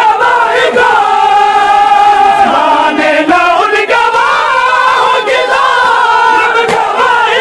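A group of men chanting a noha, a Shia mourning lament, together in long, drawn-out held notes, loud.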